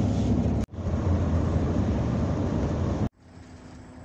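Steady low rumble of engine and road noise inside a moving coach bus. About three seconds in, it cuts abruptly to a much quieter steady hum carrying one faint steady tone.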